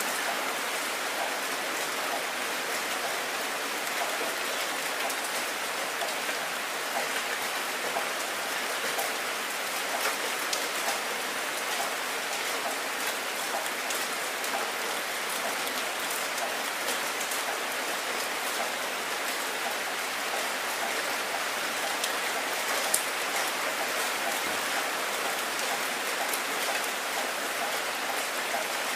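Heavy rain falling steadily and splashing onto the ground: a dense, even hiss of drops with close single drop hits scattered through it, one sharper hit standing out a little past two-thirds of the way through.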